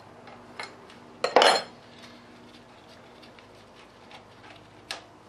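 Metal clinks of a wrench and fittings being worked on a bare Cummins diesel engine block, with a louder metallic clatter about a second and a half in and a sharp click near the end.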